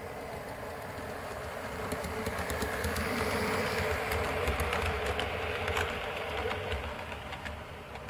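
A model railway train, a diesel-outline locomotive hauling coaches, running past on the layout. Its motor hum and the rumble of the wheels build up, then fade away, with sharp clicks as the wheels cross the rail joints and points.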